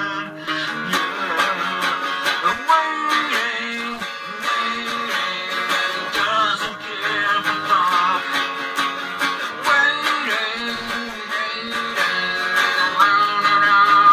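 Guitar being strummed, playing the chords of a song.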